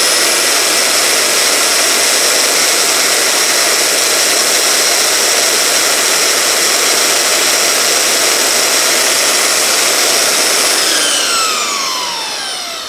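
Makita 9403 4x24 belt sander running free with no workpiece, a loud steady whine over the rush of the belt, while its belt tracking is adjusted. About eleven seconds in it is switched off and winds down, the whine falling in pitch.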